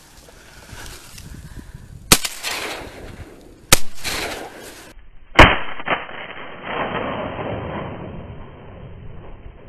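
Three shotgun shots at about a second and a half apart, each trailing off in a long echo, then a few seconds of rustling noise.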